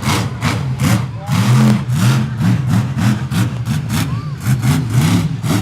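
Monster truck engine revving up and down repeatedly, its pitch rising and falling every second or so.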